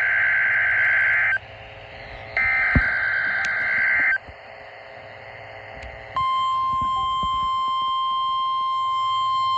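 Emergency Alert System broadcast for a severe thunderstorm warning: two harsh, buzzing digital data bursts of the coded alert header, each about a second and a half long with a second's gap, then after a short pause a long, steady single-pitched attention tone starting about six seconds in.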